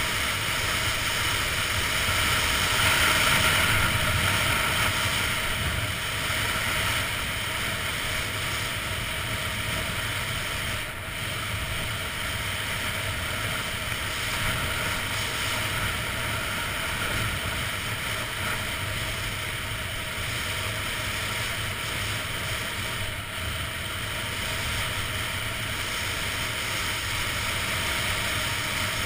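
Steady rush of wind over a GoPro's microphone as a skier descends at speed, mixed with the hiss of skis sliding over groomed snow; a little louder a few seconds in.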